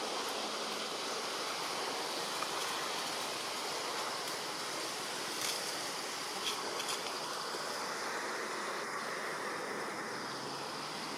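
Steady rushing outdoor noise, like flowing water, with a few faint clicks about halfway through.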